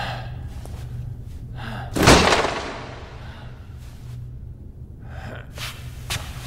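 A man breathing hard and gasping in short breaths while doing push-ups, with one much louder, sudden burst about two seconds in. A low steady hum runs underneath.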